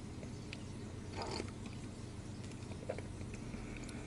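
Faint mouth sounds of a person sipping shochu, with a short sip about a second in and a few small clicks, over a low steady hum.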